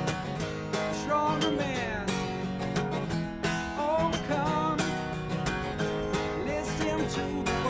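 Acoustic guitar strummed in a steady rhythm, with a higher melody line that bends in pitch over the chords.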